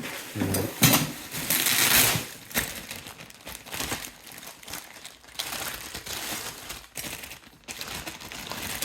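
Plastic packaging crinkling and rustling as compressor accessories are unwrapped and handled, loudest about two seconds in, then quieter handling noise.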